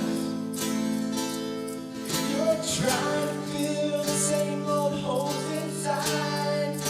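Worship band playing a country-rock song: strummed acoustic guitar under sung notes that are held long between lines, with a change of chord about three seconds in.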